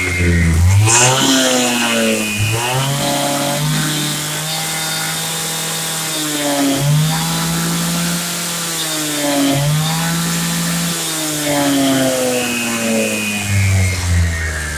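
Husqvarna K960 two-stroke power cutter (concrete saw) engine revved up and held at high speed, dipping and revving up again a few times, then falling back toward idle near the end.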